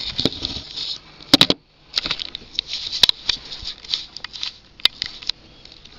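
Handling noise: irregular rustling with several sharp clicks and knocks as a plastic tub and a handheld camera are moved about close to the microphone. The loudest knocks come just under a second and a half in, followed by a brief silent gap.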